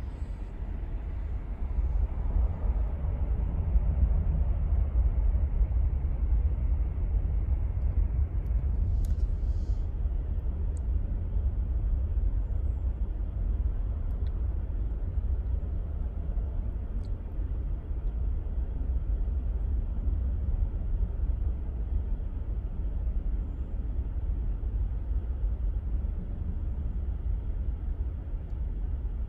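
Boeing 737 jet engines at takeoff power, heard from afar: a low, steady rumble that swells about two seconds in and then holds.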